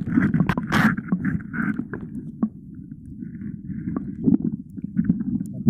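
Muffled sloshing and rumbling of seawater moving around a phone microphone held underwater in shallow water, with scattered clicks and knocks as a metal rod probes among the coral.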